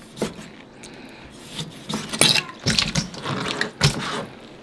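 Sharp clicks and knocks of a knife slicing crunchy raw pink sea cucumber on a cutting board, coming thickest about two to three seconds in.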